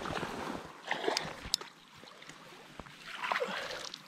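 Water splashing and dripping in irregular bursts as a hooked brown trout is drawn to a landing net in the river.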